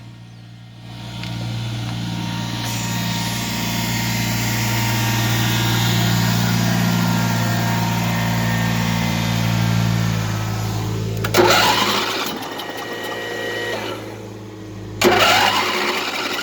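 A small engine running steadily, its low drone holding for about ten seconds. Two short bursts of rushing noise come near the end.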